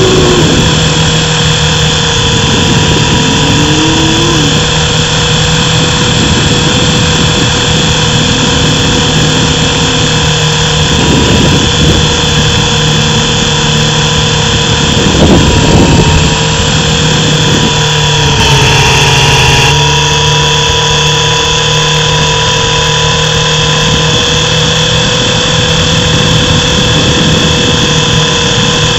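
Mini RC helicopter's small electric motor and rotors, heard up close from its onboard camera: a loud, steady whine with a buzz, and a brief knock about fifteen seconds in.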